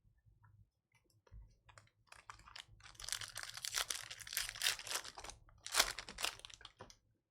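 Crackling and tearing of a plastic trading-card pack wrapper being ripped open and crumpled, starting softly and growing into a dense crinkle from about two seconds in, with a sharp tear near the end.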